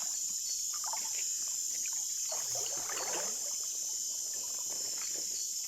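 Night insects, crickets among them, trilling steadily and high-pitched, over soft water splashing and lapping from people moving in a river, most noticeable about two to three seconds in.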